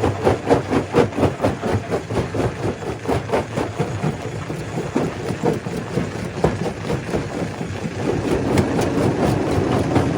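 Stone crusher running: a rapid clatter of rock knocking and breaking, about three or four knocks a second, over a steady machine drone. The knocks thin out partway through, and the drone grows louder near the end.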